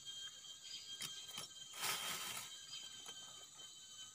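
Steady high-pitched drone of forest insects, with a few short clicks and rustles from fishing gear being handled. The loudest rustle comes about two seconds in.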